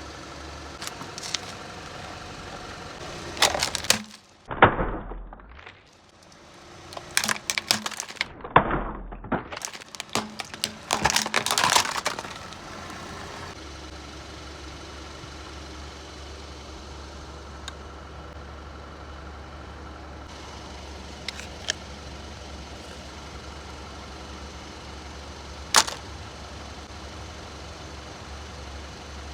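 Objects cracking and crunching as a car tyre rolls over and crushes them: a cluster of loud sharp cracks in the first half, one more sharp crack near the end. A car engine idles steadily underneath.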